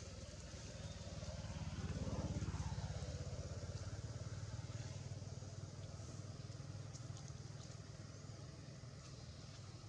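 A motor vehicle's engine passing by, swelling to its loudest about two and a half seconds in and then slowly fading.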